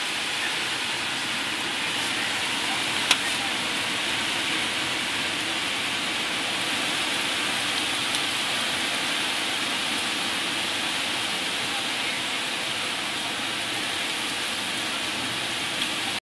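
Heavy hurricane rain pouring down in a steady hiss, with one sharp click about three seconds in.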